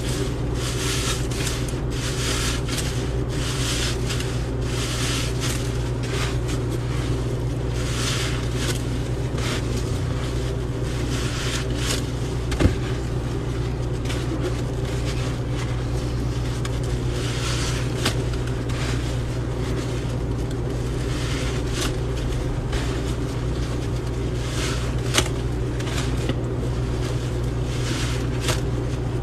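A wet sponge loaded with dish soap and baking soda is squeezed and scrubbed against a sink, making repeated soft scrubbing and squishing strokes as the mix foams up. A steady low hum runs underneath, with a couple of sharper clicks.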